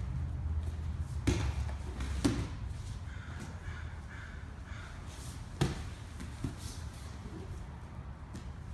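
Bodies scuffling and thumping on foam grappling mats during a jiu-jitsu escape drill, with a few dull thumps, the sharpest about five and a half seconds in.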